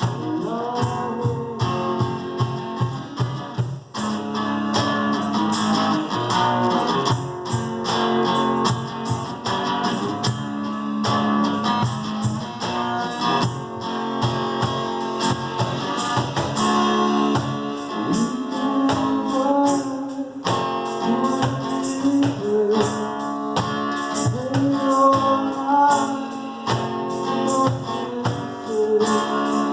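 Live acoustic band music: a strummed acoustic guitar over a steady percussion beat, with a voice singing in the later part.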